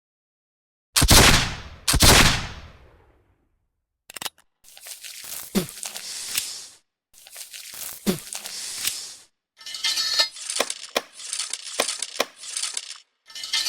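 Two pistol shots about a second apart, each with a decaying echo, followed by reloading: two long scraping, sliding handling noises with a click in each, then a quick series of clicks and rattles.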